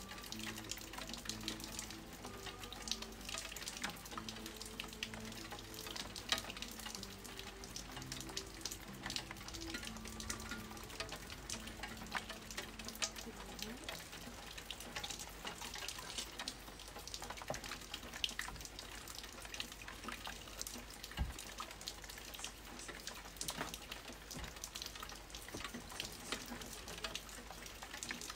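Rain falling in scattered drops, heard as an irregular patter of small crackles and ticks over a low steady hum.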